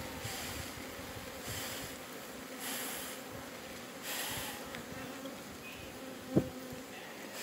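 Honeybees of a queenless split colony buzzing in a steady hum on a brood frame lifted out of the hive. A single sharp knock sounds about six seconds in.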